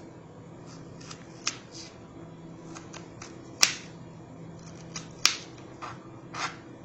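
Kitchen knife cutting raw potato slices on a plastic chopping board: about eight separate, unevenly spaced knocks as the blade hits the board, the loudest a little past halfway. A steady low hum runs underneath.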